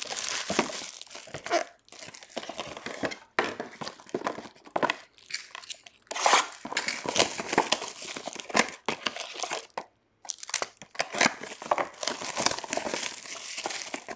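Plastic wrappers of trading-card packs crinkling and tearing as they are ripped open by hand, in irregular crackling bursts with short pauses.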